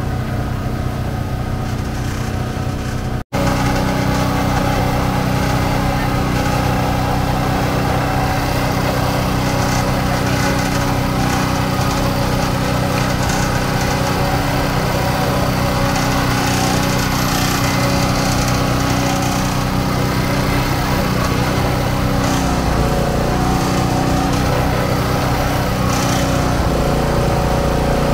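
Steady running of a small engine-driven sugarcane juice press as the stalks are fed through its rollers. Its pitch dips briefly about two-thirds of the way in. For the first few seconds, before it, there is street traffic with motorbikes.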